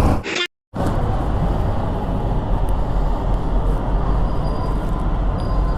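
Steady road and traffic rumble, cut off briefly about half a second in.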